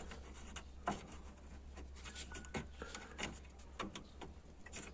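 Honda Fit hood prop rod rattling in its broken plastic retaining clip: a scatter of light, irregular plastic clicks and knocks. This is the rattle that is heard in the cabin as coming from the glovebox area.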